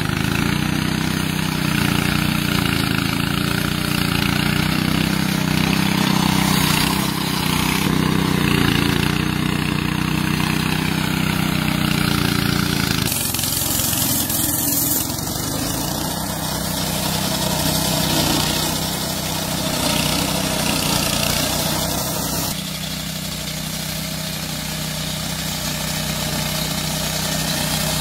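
Small petrol engine of a remote-control lawn mower running steadily as it cuts grass. The sound changes abruptly about halfway through and again later.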